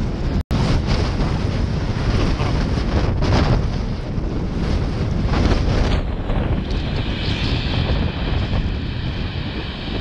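Strong gale wind buffeting the microphone, with a brief dropout about half a second in.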